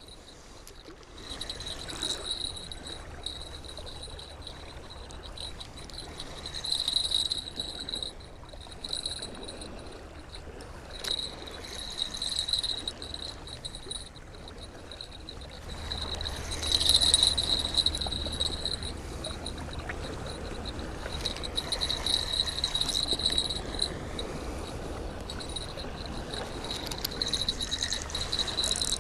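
Fishing reel being worked against a hooked fish: a pulsing high-pitched clicking and whirring that swells in several spells as the fish pulls out drag.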